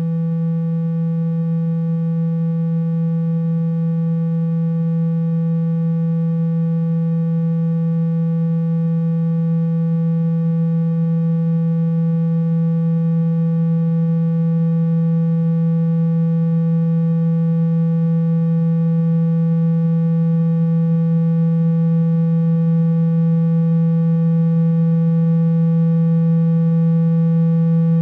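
Steady low electronic tone with a buzzy edge, a speaker-cleaning tone played at full volume to shake water and dust out of a phone speaker. It holds one pitch throughout and grows slightly louder.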